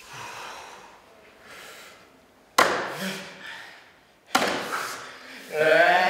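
Hands slapped down hard on a table top twice, about two and a half and four and a half seconds in, each with a short vocal exclamation. Near the end several male voices break into a loud, held vocal sound.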